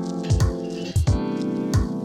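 Background music: an electronic track with sustained keyboard or synth chords over repeated kick-drum hits.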